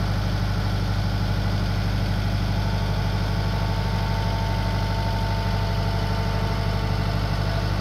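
Diesel engine of a Mahindra compact tractor running steadily at low speed while its front loader holds a raised water tank, with a thin steady whine joining about two and a half seconds in.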